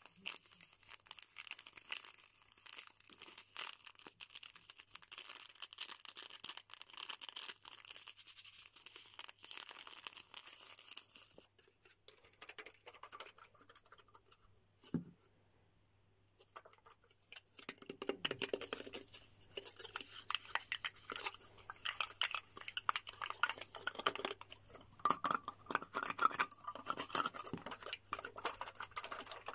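Hands crinkling a plastic snack wrapper, fine crackling for the first ten seconds or so. After a few seconds of near quiet with one sharp click, fingers tap and scratch on a four-pack of small plastic pots with sealed lids, a busier run of crackles and taps.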